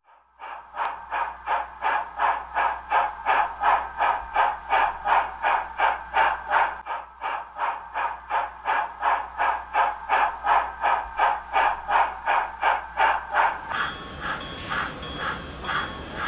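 Steam locomotive exhaust sound of a 2-8-8-4 EM-1, chuffing at a quick, even beat. About three-quarters of the way through, the chuffs drop in level and a steady tone joins them.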